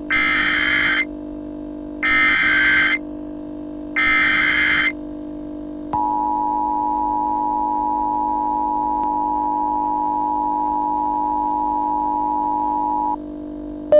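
Emergency Alert System tones: three harsh data bursts of about a second each, a second apart, then the steady two-tone attention signal held for about seven seconds. A steady low drone sits underneath throughout.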